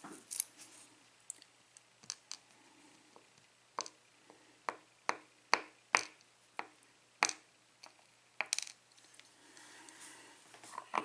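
Small metal lock pins from a disassembled euro cylinder clicking and tapping against a hard surface as they are handled and rearranged, about a dozen sharp, irregular clicks.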